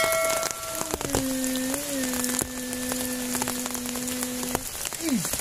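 Steady rain falling, with a held musical tone over it: one note for about a second, then a lower note held for about three and a half seconds.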